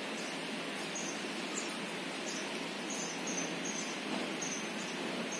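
Steady background hiss of ambient noise, with faint short high chirps recurring a few times a second.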